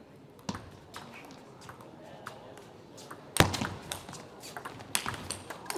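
Table tennis ball clicking off rackets and bouncing on the table: a few spaced clicks, a loud knock about three and a half seconds in, then a quicker run of clicks, as in a rally.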